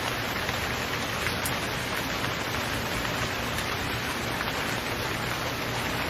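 Steady rain falling, an even hiss with no music over it.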